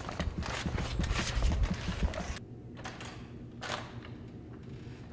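Footsteps of two people walking on a hard tiled floor, with a low rumble underneath. About two and a half seconds in the sound drops away abruptly, leaving a quieter background with a few faint taps.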